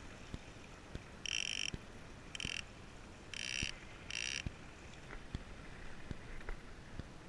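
Fishing reel drag buzzing in four short bursts as a hooked tuna pulls line off against it, with faint ticks in between.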